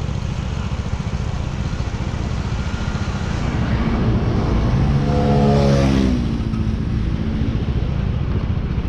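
Motorcycle riding along the road: a steady low rumble of engine and wind. About four seconds in, another vehicle's engine swells up, passes close by with its pitch sliding down, and fades a couple of seconds later.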